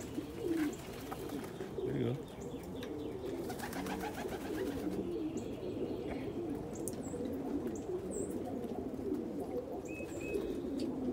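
A loft full of domestic pigeons cooing, many overlapping coos running on without a break.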